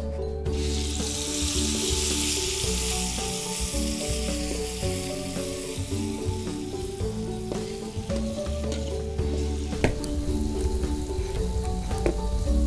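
Chopped chili and shallots hitting hot oil in a stainless steel wok: a sizzle that starts suddenly about half a second in and slowly dies down. A metal spatula stirs and scrapes, giving occasional clicks.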